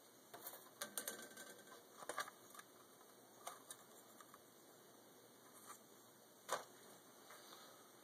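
Faint scattered clicks and light scrapes of small hand work: metal tweezers and a thin piece of veneer being handled against a card, busiest in the first couple of seconds, with one sharper click later on.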